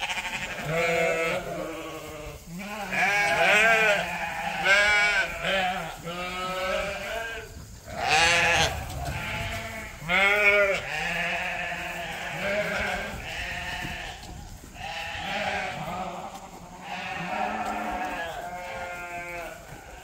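Several sheep bleating over and over, their calls overlapping and each one wavering in pitch.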